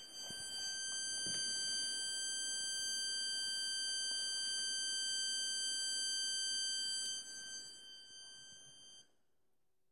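555 timer astable oscillator's rectangle-wave output on a small speaker: a steady high-pitched buzzing tone rich in overtones. It grows quieter after about seven seconds and cuts off about nine seconds in.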